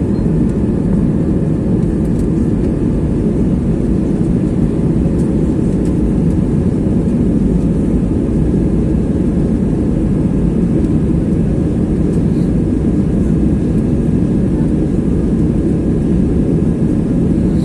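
Airliner engines and rushing air heard inside the passenger cabin as a steady, loud, low noise.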